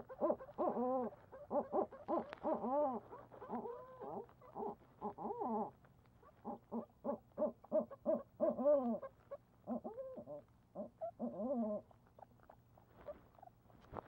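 Barred owls calling in a rapid series of short hoots and arching, rising-and-falling cries, exchanged at the nest box during a prey delivery. The calling stops near the end.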